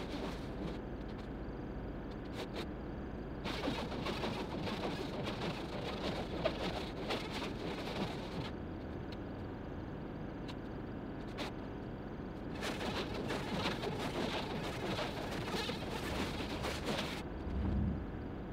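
Plastic stretch wrap crackling as it is pulled off a hand-held roll and wound around a pallet, in two spells of rapid crackling, the first from about three to eight seconds in and the second from about thirteen to seventeen seconds in. A steady low rumble runs underneath.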